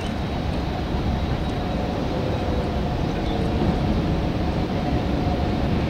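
Steady low rumble of a boat's engine with a wash of water and wind noise, a little louder from about a second in.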